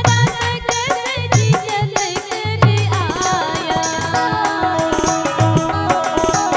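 Live Rajasthani devotional bhajan: a woman singing into a microphone over electronic keyboard and dholak. About three seconds in, the voice drops out and the keyboard and dholak carry on alone.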